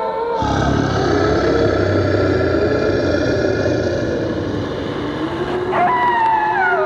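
Sound-effects cassette recording of howling. A dense rumbling rush of noise sets in about half a second in and runs for around five seconds under a wavering howl, and a fresh howl gliding downward rises up near the end.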